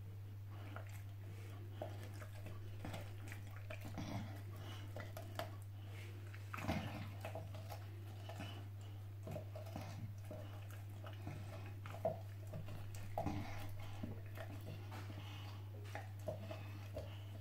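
A puppy chewing raw carrot: irregular wet smacks, crunches and licking, loudest around a third of the way in and again about two thirds in. A steady low hum runs underneath.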